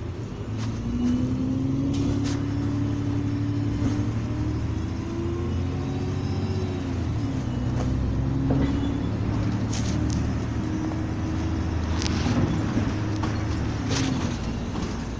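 Diesel engine of a MAN Lion's City NL223 city bus running while the bus stands still, heard from on board: a steady drone whose pitch wavers, with a few short clicks and rattles.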